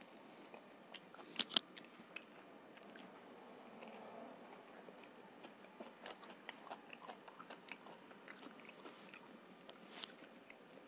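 Close-up mouth sounds of a person chewing a bite of homemade vegetable pizza: wet smacks and clicks, the sharpest pair about a second and a half in, then a run of small clicks in the second half.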